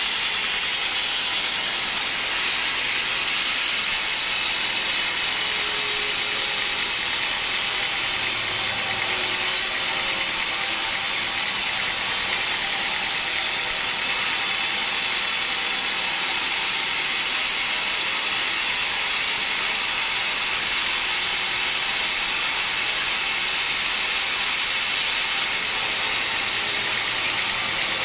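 Band sawmill blade cutting lengthwise through a teak log: a steady, even hiss of sawing.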